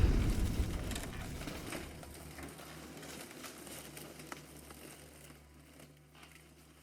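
The dying tail of a bomb explosion sound effect: a low rumble fading away over about five seconds, with scattered crackles and debris ticks, until it is near silent.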